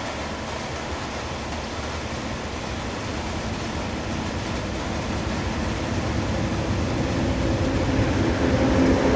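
Approaching freight train: a steady rumble growing steadily louder as it nears, with a low steady tone coming in near the end.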